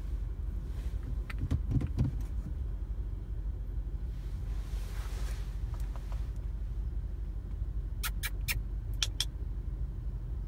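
Steady low road and engine rumble inside a moving car's cabin. A few dull knocks come about a second and a half in, and a quick run of sharp clicks near the end.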